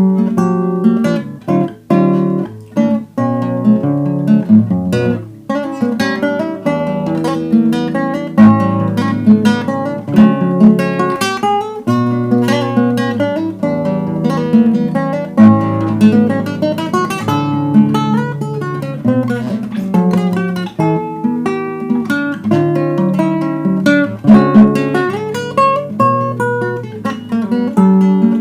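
Acoustic guitar playing a solo piece: quick plucked notes over a moving bass line, with strummed chords.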